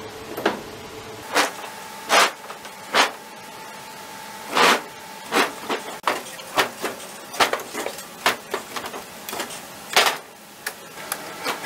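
Heavy cedar slab table being shoved and dragged across a wooden trailer deck: an irregular run of sharp scrapes and knocks, the loudest about two, four and a half and ten seconds in.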